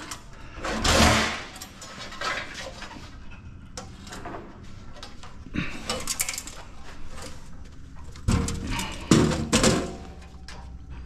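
Metal parts of a computer equipment rack being handled: scattered clicks, scrapes and clanks, with a few heavier knocks about a second in and again near the end.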